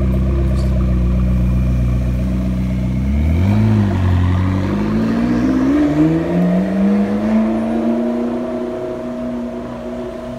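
McLaren's twin-turbo V8 idling steadily, then a short rev about three and a half seconds in as the car pulls away, the engine note rising as it accelerates and fading as it drives off.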